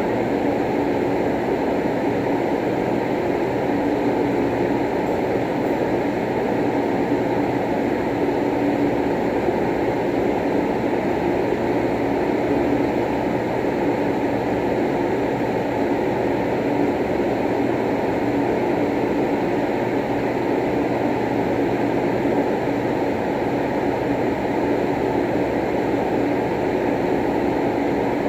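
Steady low droning background noise with a faint constant hum, unchanging throughout.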